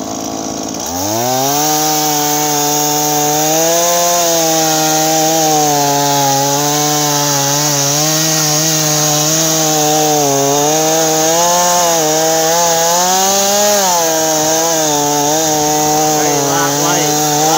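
New Stihl MS170 two-stroke chainsaw revving up to full throttle about a second in and cutting into a log. Its engine pitch dips and recovers as the chain bites. Near the end the pitch rises briefly, then drops back and the saw runs on steadily.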